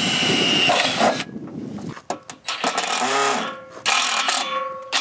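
Cordless drill/driver driving a screw through a steel ladder bracket into a school bus's sheet-metal side. The motor runs in several short bursts, stopping and starting, with its pitch rising and falling as it spins up and slows.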